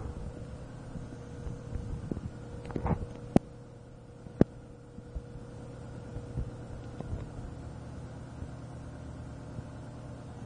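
A pet snoring: a low, steady rumbling drone under a constant hum, with a few sharp clicks about three to four and a half seconds in.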